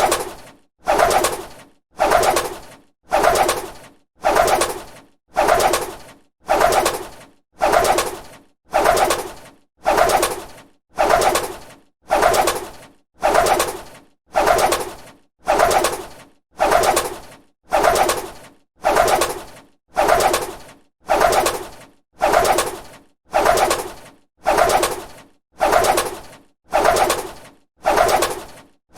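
A bird's wings flapping, a short flurry of wingbeats that fades out, repeated about once a second at an even pace.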